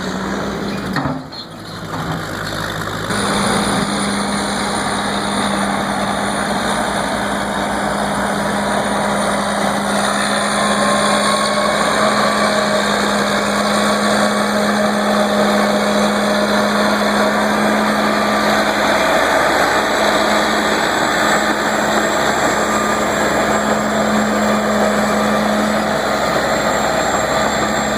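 Engine of vintage heavy construction equipment running steadily with a constant low hum, after a brief break about a second in.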